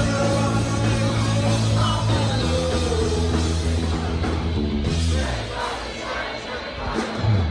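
Rock band playing live through a loud PA, a man singing over bass, guitar and drums. The band drops back to a quieter, thinner passage about five seconds in.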